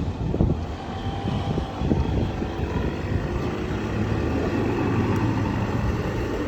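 A train's low, steady rumble going by, with several sharp knocks in the first two seconds that fit wheels crossing rail joints.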